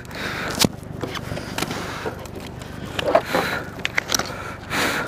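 Handling noise on a kayak: sharp clicks and knocks, with short spells of crinkling from a clear plastic pouch being handled, near the start, around the middle and near the end.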